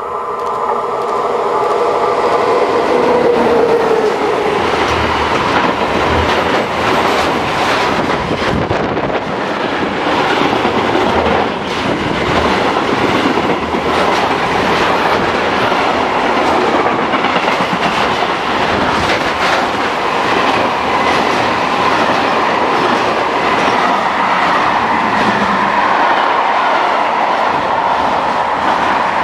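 Long freight train of container and hopper wagons passing close by. A pitched tone falls in pitch in the first few seconds as the head of the train goes past, then the wagons rumble by with a steady run of wheel clicks over the rail joints.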